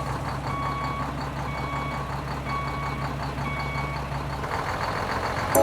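Truck reversing alarm beeping about once a second over a steady low engine hum. Both stop about four and a half seconds in.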